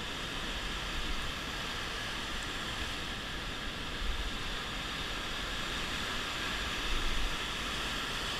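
Steady rushing noise of churning surf and foamy wash breaking around the angler's feet.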